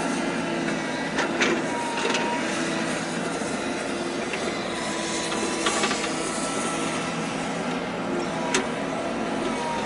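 Steady mechanical harbour noise with a few sharp metallic clanks or knocks and brief high squeals scattered through it.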